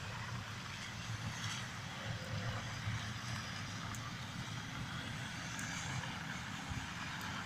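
Steady low rumble of distant street traffic, with a faint hiss of outdoor air over it.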